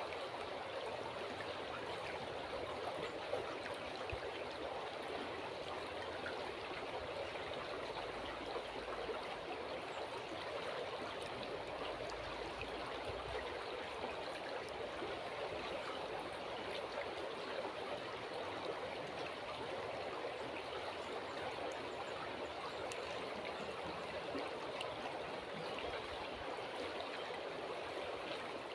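River water flowing and babbling steadily, an even rushing hiss with no pauses.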